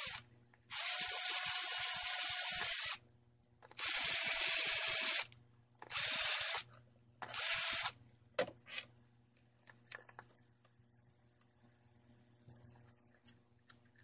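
Electric hand drill run in four bursts against a white plastic fan housing part, a long one of about two seconds, a shorter one, then two brief ones, each a steady hiss with a motor whine in it. Faint handling clicks follow.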